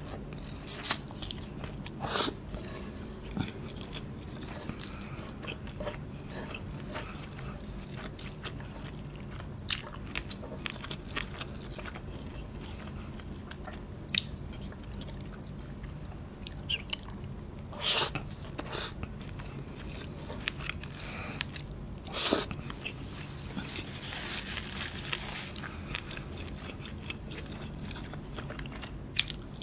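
Close-miked chewing and mouth sounds of a person eating noodles with bare hands: soft wet chewing broken by scattered sharp smacks and clicks, a few of them much louder. A steady low hum runs underneath.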